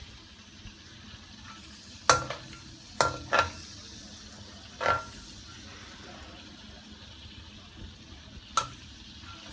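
Chicken pieces sizzling in hot oil in a wok, with a spatula knocking against the pan five times, each knock briefly ringing.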